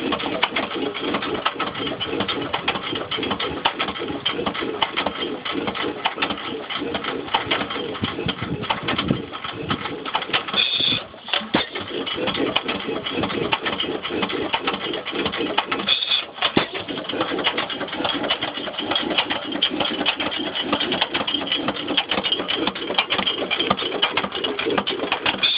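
8 hp Waterloo Boy single-cylinder stationary gas engine running steadily, with a fast, even beat of firing and valve clatter, fresh from being started for the first time. The sound drops away briefly twice.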